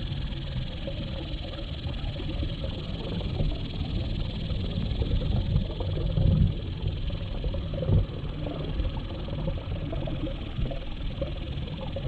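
Muffled, steady underwater rumble of water moving past a submerged GoPro's waterproof housing, with dull knocks about six and eight seconds in.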